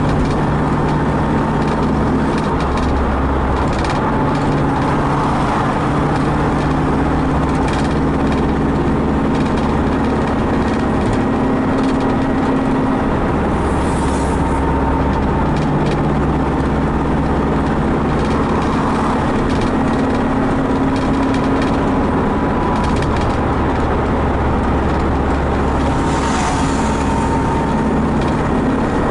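A vehicle's engine running steadily at highway speed, mixed with constant wind and road noise. The engine note shifts slightly now and then, and there are brief hissing swells twice, about halfway through and near the end.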